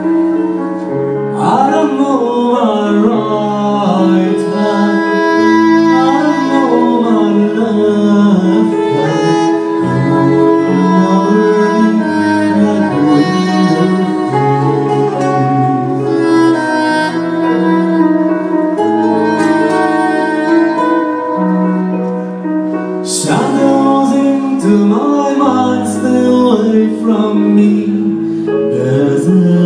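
Live band music: a melodic lead line weaving over long held bass notes that step from pitch to pitch.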